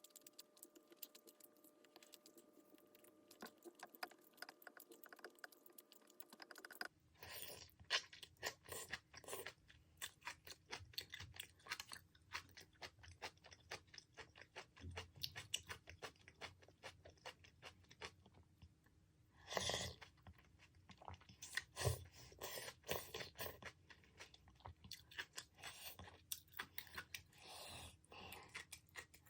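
A person chewing food close to the microphone: many quick, irregular wet clicks and crunches, starting about seven seconds in. Before that there is only a faint steady hum.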